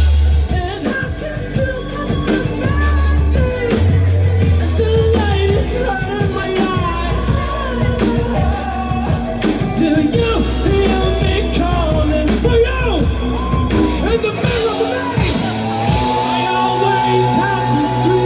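Rock band playing live with a singer, loud and continuous; the low end drops out briefly about fifteen seconds in, then a long note is held near the end.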